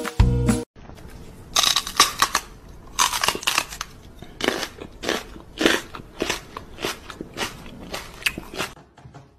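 A Doberman biting down on a rubber ball toy, making a string of crunching chomps, roughly one or two a second, that stop near the end.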